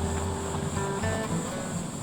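Background music with a few plucked, guitar-like notes held briefly, over a low rumble and a steady high hiss.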